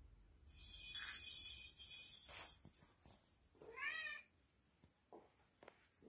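Domestic cat giving one short meow that rises and falls, about four seconds in. Before it, a high jingling rattle runs for about two seconds.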